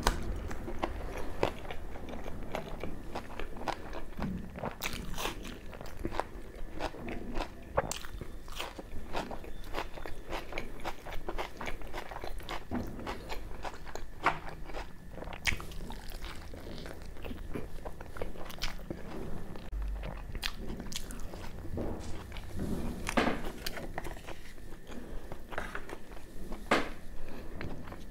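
Close-miked eating: crunchy bites into a raw green chilli and puri, and chewing of puri dipped in mutton curry, with many irregular sharp wet mouth clicks.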